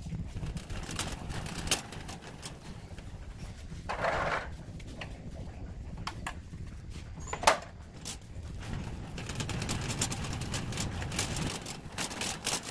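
Wire shopping cart rolling across a hard store floor: a steady low rumble from the wheels with scattered clicks and rattles from the basket, and one sharp knock about seven and a half seconds in.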